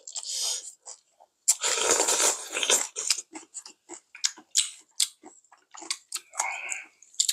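Close-miked eating sounds: wet chewing and lip smacking in many short clicks, with a longer noisy slurp of soup from a spoon about a second and a half in.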